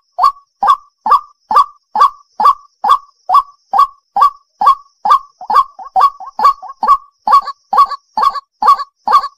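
Female white-breasted waterhen (ruak-ruak) calling, a short note repeated evenly about twice a second, with a brief quicker stumble of notes around the middle. This is the female's call that draws in males, used as a lure.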